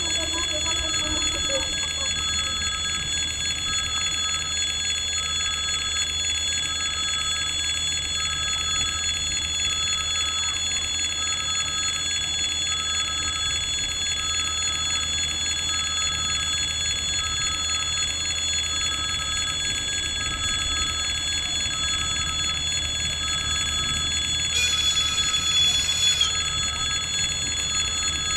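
Russian level-crossing electric warning bell ringing continuously over a steady low rumble. A short hiss comes about three-quarters of the way through.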